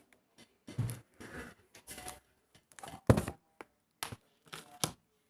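Close handling noises of a tablet being held and worked: a string of short rubs, taps and knocks, the loudest about three seconds in.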